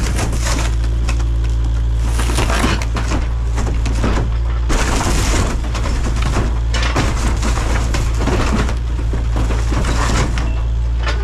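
Kubota KX057 mini excavator's diesel engine running hard under load while its bucket and thumb grip and pull at an old minibus's roof, the bus body's metal crunching, creaking and tearing in repeated bursts.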